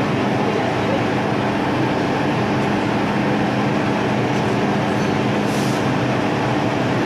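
MTR M-Train (Tsuen Wan line) metro train running: a steady rumble with a constant low hum from the train's running gear and motors, and a brief hiss about five and a half seconds in.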